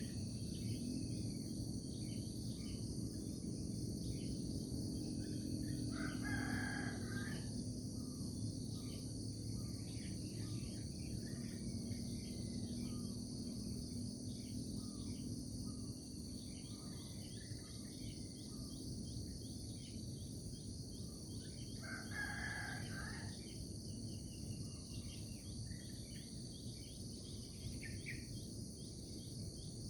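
A rooster crowing twice, about sixteen seconds apart, over a steady chorus of insects and scattered short bird chirps.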